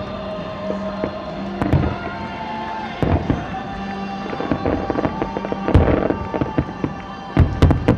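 Aerial fireworks shells bursting: a series of sharp bangs with crackle, the loudest about six seconds in and a quick cluster of bangs near the end, with music playing underneath.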